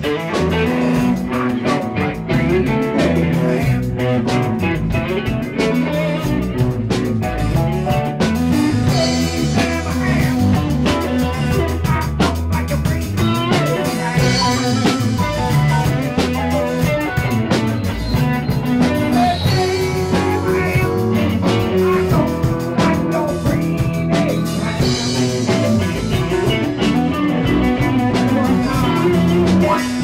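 Live blues-rock band playing: electric guitar, bass guitar, keyboard and a Tama drum kit, loud and steady throughout.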